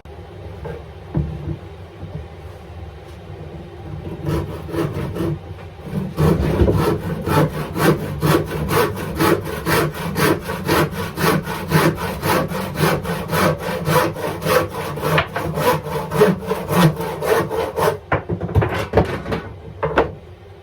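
Handsaw cutting through a piece of wood with regular back-and-forth strokes, about three a second. It starts with a few light strokes and ends with a few looser strokes near the end.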